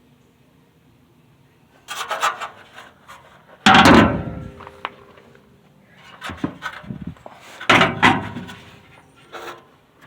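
Clunks, knocks and scraping from handling a heavy steel muffler onto a bathroom scale, with two loud thumps about four and eight seconds in.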